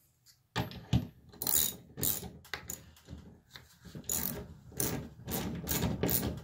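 Ratchet wrench clicking through a run of short back-and-forth strokes, starting about half a second in, as it tightens a mounting bolt on a barn door rail.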